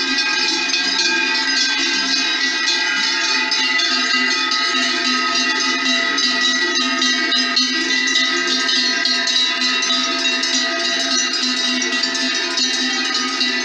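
A herd of cows wearing large cowbells, the big bells put on for the drive up to summer pasture, clanging continuously as they walk. Many bells of different pitches ring over one another without a break.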